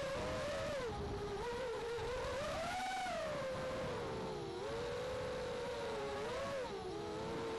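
Brushless motors and propellers of an Eachine Wizard X220 racing quadcopter whining steadily in flight, the pitch rising and falling with the throttle: highest about three seconds in, dipping about halfway through and again near the end.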